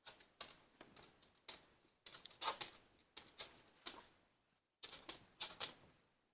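Handling noise: a run of light, uneven clicks and taps, a few a second, with the loudest bunch near the middle.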